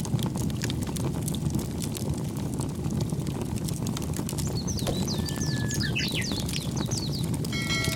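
Outdoor ambience: a steady low rumble with scattered light clicks, and birds chirping in quick falling notes from about five seconds in.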